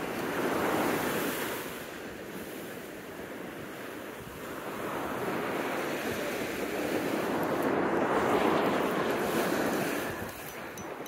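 Ocean surf breaking and washing up the beach, swelling twice and easing back near the end.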